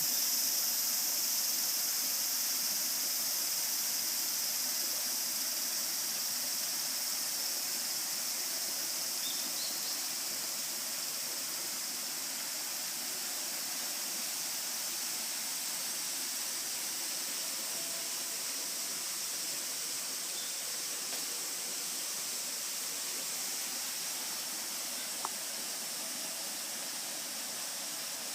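Chorus of cicadas, a dense, steady high-pitched buzz that grows slightly quieter over time.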